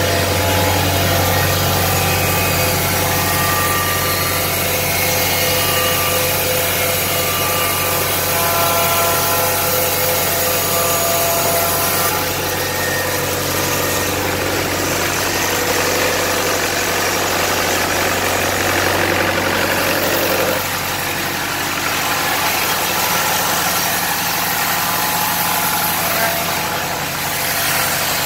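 Horizontal band resaw and its feed conveyor running under test, a steady loud machine hum with a strong low drone and several steady whining tones. The level dips slightly about twenty seconds in.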